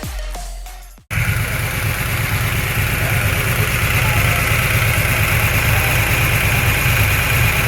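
Electronic dance music that cuts off abruptly about a second in, followed by a motor engine running steadily with a low rumble.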